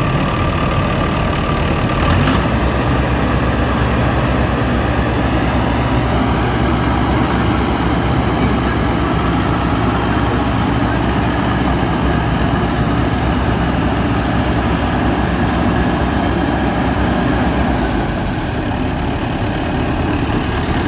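Crown Sumo rice combine harvester's diesel engine running steadily and loudly as the machine moves through standing rice. A single short click comes about two seconds in.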